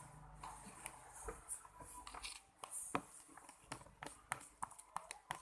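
Irregular light clicks and taps of a spoon in a small container as a shampoo-and-salt mixture is stirred into slime.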